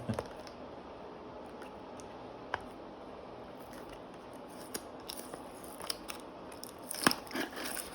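A small cardboard box being opened and its packaging handled: scattered light clicks and scrapes, growing busier near the end with a few sharp clicks about seven seconds in.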